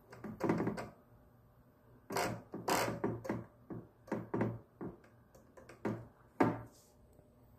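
Handling noise from a plastic RC radio transmitter on a countertop: an irregular string of taps, knocks and light rustles, with short quiet gaps between them.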